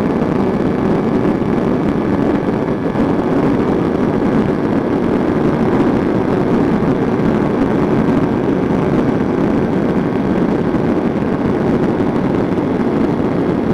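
Kawasaki Ninja 250R's parallel-twin engine held steadily at high revs near top speed, heard through heavy, even wind rush on the microphone.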